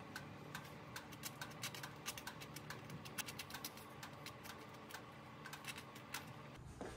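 Metal spoon spreading jam over toast on a plate: irregular crisp scrapes and clicks of the spoon on the crust, several a second, over a faint steady room hum.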